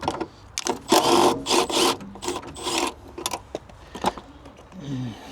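Ratchet wrench with a 10 mm socket working a trim bolt loose, in a series of short, uneven back-and-forth strokes.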